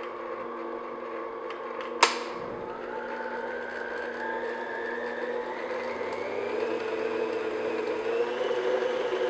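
Electric stand mixer running with its flat beater, mixing the last of the flour into a thick fruit cake batter: a steady motor hum and whine that creeps gradually higher in pitch. A single sharp click about two seconds in.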